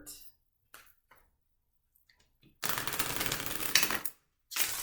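Tarot cards being shuffled in the hands: a few faint clicks, then two bursts of rapid clattering, each about a second and a half long.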